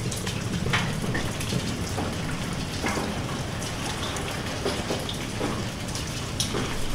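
Steady rain falling, with scattered louder single drops standing out from the hiss.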